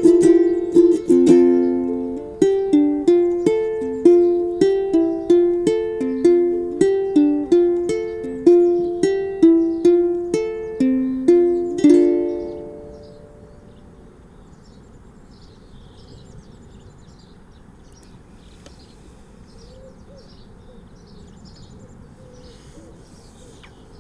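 Plucked strings picking out the closing notes of a song, one note after another with each ringing and fading, the last note dying away about halfway through. After that there is only a faint background with light, high chirps.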